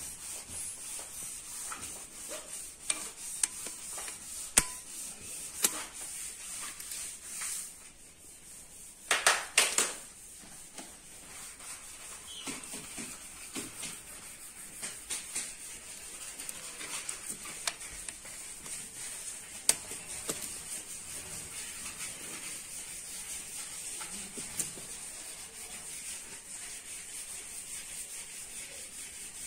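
Scattered clicks and knocks of a ratcheting torque wrench and socket being worked on cylinder head bolts during angle torquing, with a short burst of rapid clicking about nine seconds in.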